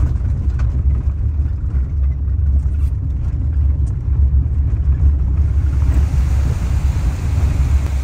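Ram ProMaster camper van driving down a gravel road, heard from inside the cabin: a steady low rumble of engine and tyres. About five seconds in, an even hiss joins in.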